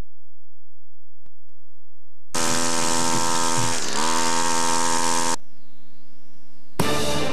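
A loud, steady electrical buzz with hiss from a VHS recording of a TV broadcast, dipping in pitch once midway and cutting off suddenly after about three seconds. Near the end, brass-led theme music starts.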